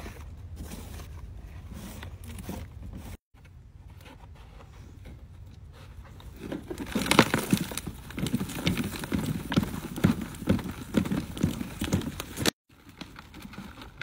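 Hands digging and rummaging through loose potting soil in a plastic pot, a dense crunching and rustling of soil against plastic. It is faint and scattered at first, grows loud about halfway through, and stops abruptly near the end.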